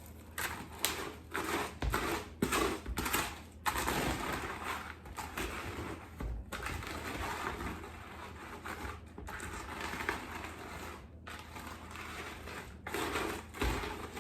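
Golden Grahams cereal being stirred into a sticky melted butter and marshmallow mixture in a bowl: the cereal crunches and rustles in irregular strokes, with short breaks every couple of seconds.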